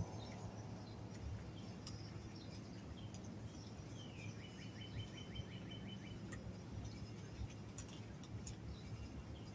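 Quiet outdoor ambience with a steady low hum and scattered faint clicks, and a brief high chirping trill about four seconds in that lasts a couple of seconds.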